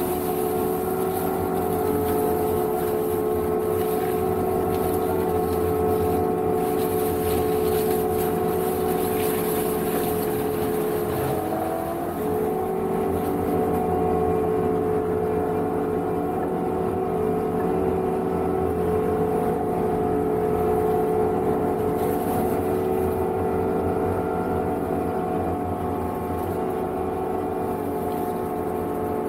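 Energreen ILF S1500 self-propelled boom mower running steadily with a strong whine from its engine and hydraulics, while its boom-mounted flail head cuts dry reeds and brush. About twelve seconds in, the pitch dips briefly and then recovers.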